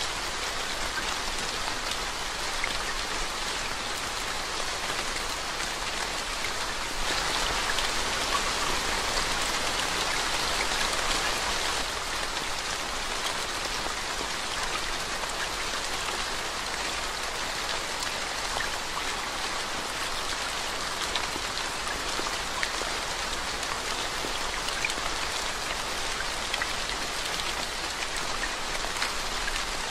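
Steady rain falling into standing water on a road and on the surrounding leaves, with scattered individual drop splashes. It gets a little heavier for about five seconds starting some seven seconds in, then settles back.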